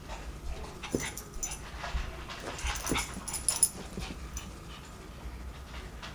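A Pomeranian making soft whimpering dog noises, with several light clicks and taps in the first four seconds.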